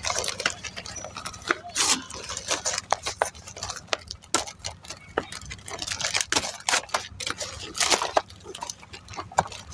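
Handling noise from a toy truck's packaging being opened: irregular clicks and knocks with several short bursts of rustling and scraping.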